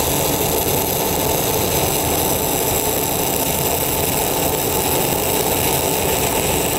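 Shielded metal arc (stick) welding: a 1/8-inch E6010 electrode burning at about 90 amps on 10-gauge steel plate, running a vertical-down weld with a steady, dense crackle.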